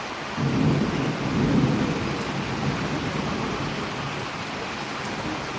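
Steady rain with a low rumble of thunder that swells about half a second in and fades away over the next two seconds.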